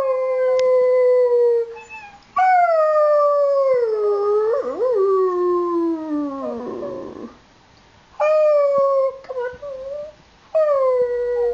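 Eight-week-old Alaskan malamute puppy howling: four howls, each falling in pitch, the second and longest lasting about five seconds as it slides down and turns rough at its end.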